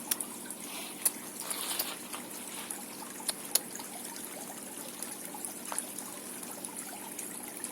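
Steady, even hiss like trickling water, with a few short soft clicks.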